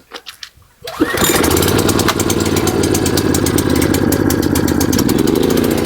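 Kyoritsu Wing Mower AZ646 walk-behind slope mower's small petrol engine starting: a couple of faint knocks, then it catches about a second in and runs steadily with a rapid even firing beat.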